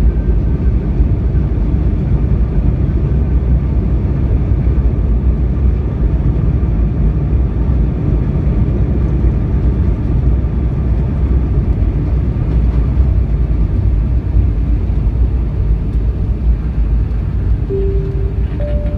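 Jet airliner cabin noise as the plane rolls along the runway after landing: a steady low rumble from the engines and the wheels on the runway. Two short tones sound near the end.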